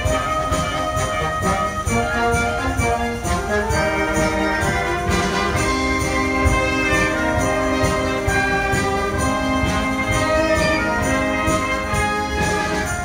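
Brass band music, with held chords from brass instruments and trumpets.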